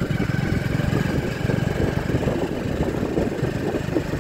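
A vehicle's engine running steadily on the move along a road, a rapid low pulsing rumble.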